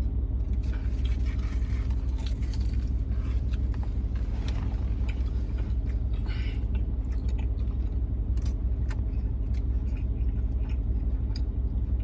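Someone biting into and chewing food inside a car, with small crackles and clicks, over the steady low rumble of the car cabin.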